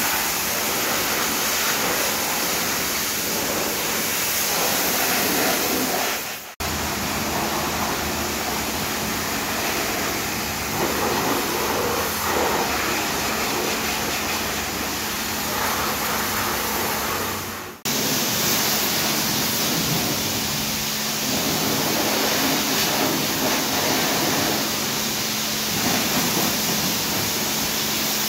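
Pressure-washer jet spraying mud off a pickup truck's tyres, wheel arches and body: a steady hiss of high-pressure water with a low hum underneath. The sound cuts out abruptly twice, about a third and two thirds of the way through.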